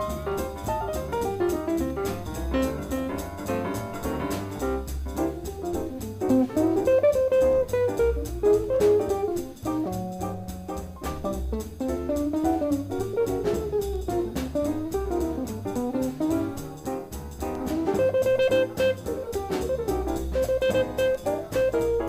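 Small jazz group playing a blues: a guitar solo line over bass and drums, with an even cymbal beat.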